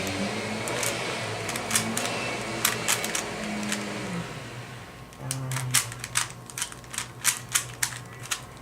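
Quick, irregular clicking of a Rubik's cube's layers being turned during a speed solve, the clicks coming thicker in the second half. A vacuum cleaner hums in the background and fades away about four seconds in.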